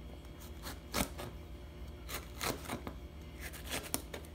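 Chef's knife slicing a jalapeño pepper into rings on a plastic cutting board: crisp cuts, each ending in a light tap of the blade on the board, at an irregular pace of about two a second.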